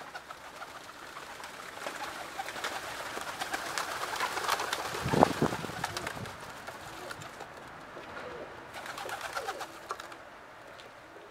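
A flock of dönek tumbler pigeons: wings fluttering and clattering, busiest toward the middle, with a single loud thump about five seconds in and soft cooing later on.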